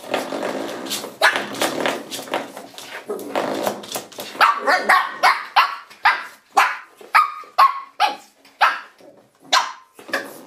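Shih Tzu puppy growling continuously, then breaking into a run of short, sharp yapping barks, about two a second, as it play-attacks a spring door stop.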